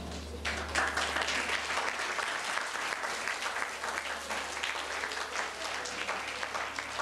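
An audience applauding, with one pair of hands clapping close by; the clapping starts about half a second in.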